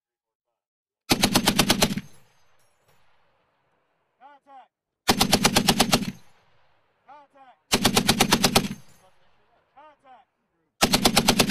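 M2 .50-calibre heavy machine gun firing four short automatic bursts of about ten rounds each, each burst lasting about a second, with two to three seconds between them.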